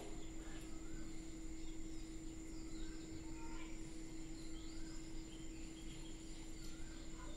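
Quiet background ambience: a steady low hum with a few faint, short chirps scattered over it.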